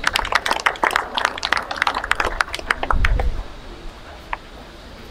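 Scattered applause from a small outdoor crowd, dense irregular claps that thin out and stop about three seconds in.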